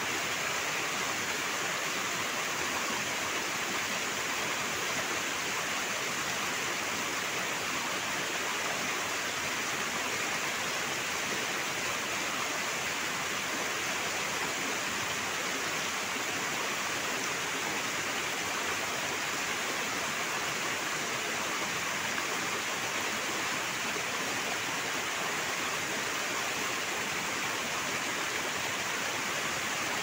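Mountain stream rushing over rocks and down a small waterfall: a steady, unbroken rush of water.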